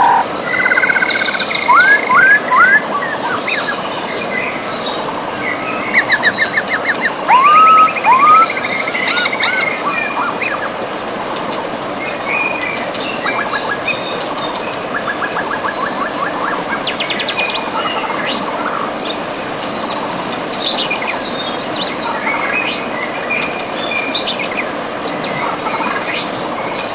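Songbirds singing and calling over the steady rush of a river: quick rising whistled notes and rapid trills, loudest and thickest in the first eight seconds, then sparser and softer.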